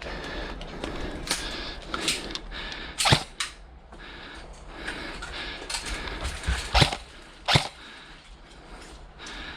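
Airsoft guns firing single shots: a handful of sharp, separate pops, the loudest about three seconds in and two more near seven and seven and a half seconds, over a low background hiss.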